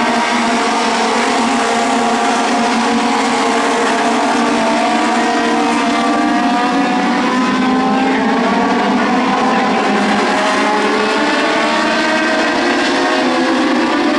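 Several Legend race cars' Yamaha motorcycle engines running at high revs together, their overlapping pitches rising and falling as the cars lap the oval.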